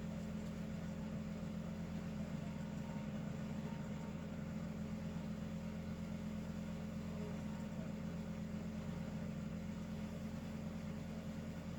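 Steady low hum with an even hiss, unchanging throughout, with no breathing or snoring rhythm in it.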